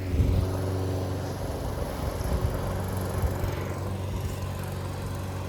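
Wind gusting, buffeting the microphone with irregular low thumps and rushing through tree foliage, strongest about the first second in. A lawnmower engine hums steadily underneath.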